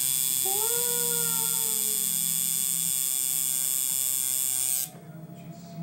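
Tattoo machine running with a steady electric buzz as the needle works ink into skin. It cuts off suddenly near the end.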